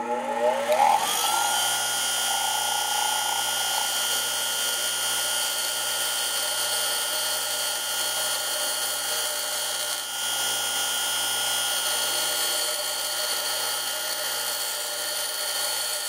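Bench grinder finishing its spin-up in the first second or so, pitch rising, then running at full speed with a steady high whine while the solder-filled end of a thick 8 AWG wire is ground down to a smaller diameter.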